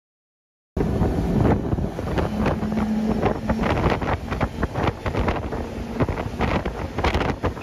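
Silent at first, then about three-quarters of a second in, loud wind buffeting on a phone's microphone cuts in over the four Mercury outboards of a 39-ft Yellowfin. The engines run near 5,000 rpm as the boat speeds up past 50 mph. Repeated sharp thumps come through the noise.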